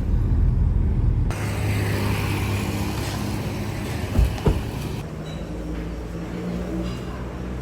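Steady low motor-vehicle engine hum with road noise. The sound changes abruptly about a second in and again about five seconds in, with a couple of brief knocks in between.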